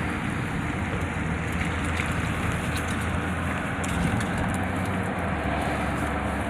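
Steady road noise inside a moving car: a low engine and tyre rumble with wind-like hiss.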